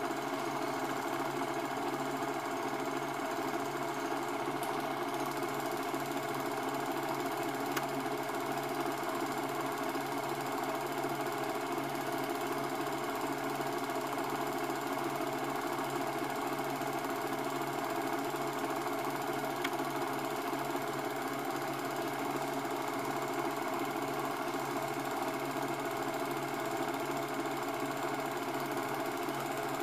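Cine film projector running: a steady, fast mechanical clatter from the film-advance mechanism.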